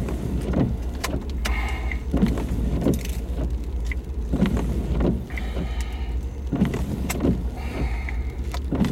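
Strong monsoon wind buffeting a car, heard from inside the cabin: a constant low rumble with irregular gusts surging every second or so.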